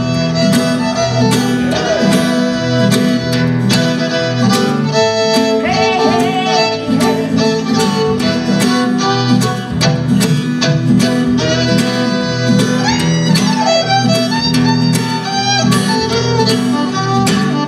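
Fiddle and acoustic guitar playing an instrumental break: the fiddle plays a melody with sliding notes over steadily strummed acoustic guitar chords.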